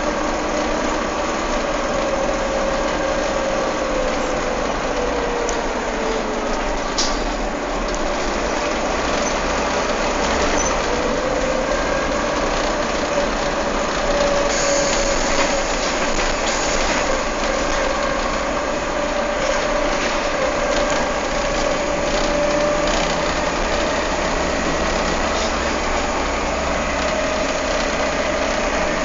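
Volvo B7TL double-decker bus running, its engine cooling fan whining steadily over the diesel engine. The whine's pitch drops a few seconds in and rises back about ten seconds in as the fan speed changes.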